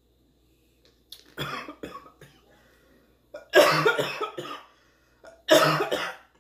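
A woman coughing hard into her fist in three bouts, the second and third the loudest.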